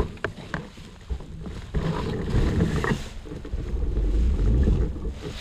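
Scattered knocks and rustling in dry leaves and pine needles as a rider moves about on the ground after a fall, with low wind rumble on the microphone.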